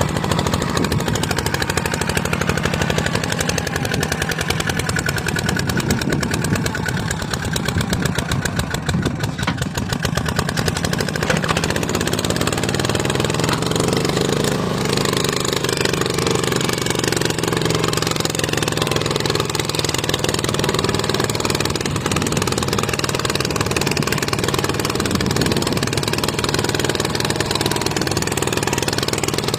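Single-cylinder diesel engine of a two-wheel walking tractor running steadily under load as it pulls a tillage implement through dry soil, with a fast, even firing beat. The engine note shifts slightly about halfway through.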